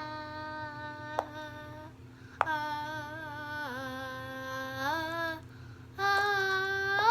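A young girl singing or humming long drawn-out notes in three phrases, her pitch sliding at the start and end of each. A single sharp click about a second in.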